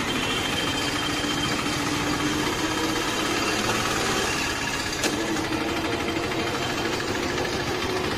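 Auto-rickshaw engine running as the three-wheeler drives, heard from inside its open passenger cab, with its hum edging up in pitch. A single sharp click sounds about five seconds in.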